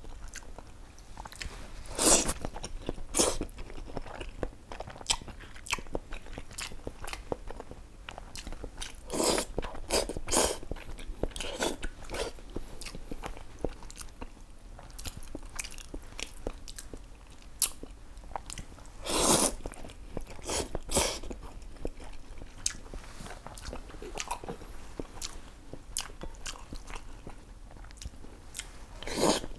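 Close-miked eating of Japanese-style noodle soup from a bowl with chopsticks: about seven short, loud slurps as noodles are sucked in, with chewing and small wet mouth clicks between them.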